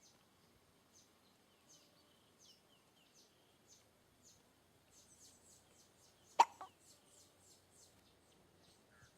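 A dubbed-in hiccup sound effect, once, loud and sharp about six seconds in, with a smaller catch just after it. Under it, faint high-pitched chirps repeat about every half second.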